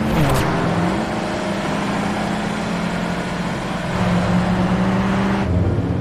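Car engine revving hard as the car accelerates away, over a loud rush of road noise; the engine note climbs, dips briefly about half a second in, climbs again and settles into a steady drone, and the rushing noise drops away about five and a half seconds in.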